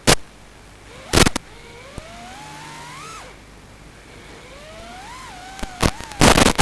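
FPV quadcopter motors and propellers whining, the pitch gliding up as the throttle is pushed and dropping as it is cut, twice. Several short, loud crackling bursts break in, about a second in and again near the end.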